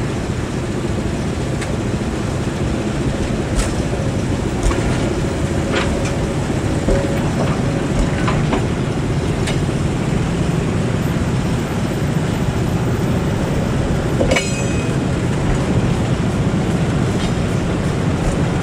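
Passenger train coaches creeping slowly past at close range: a steady rumble of steel wheels on the rails with irregular clicks and knocks, and a short metallic screech about fourteen seconds in.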